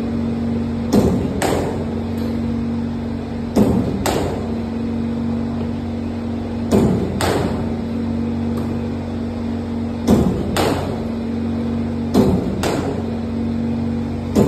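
Cricket net batting practice against a bowling machine: about every 2 to 3 seconds a pair of sharp knocks half a second apart, the ball fired and then struck by the bat, five times over a steady hum.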